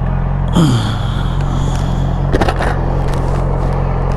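Yamaha R6 sport bike ridden at a steady speed: a steady engine hum under rushing wind noise on the microphone. About half a second in, a whoosh falls in pitch, and a few sharp knocks come just past the middle.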